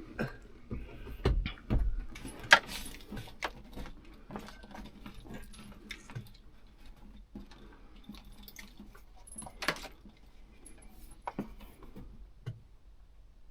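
Handling noise from cab interior trim being fitted: scattered clicks, knocks and light metallic clinking, with a few low thumps in the first two seconds and sharper clicks about two and a half seconds in and near ten seconds.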